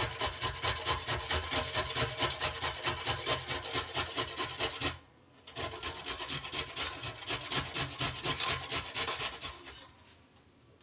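Peeled white radish (mooli) grated on a stainless steel box grater: quick rasping strokes, about three a second, with a brief pause about five seconds in. The strokes stop near the end.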